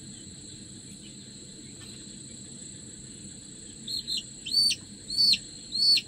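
Aseel chick peeping loudly about five times in the last two seconds, each peep rising then falling in pitch, while held for a Lasota vaccine eye drop. A steady high-pitched insect drone runs underneath.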